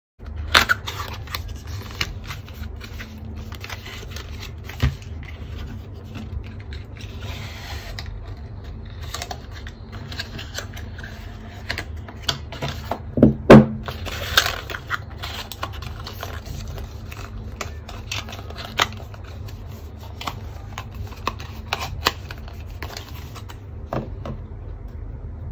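Handling noise from a paperboard box being opened: scattered taps, knocks and scrapes of cardboard and paper as an ink bottle in its paper insert is worked out. A short cluster of louder knocks comes about halfway through, over a steady low hum.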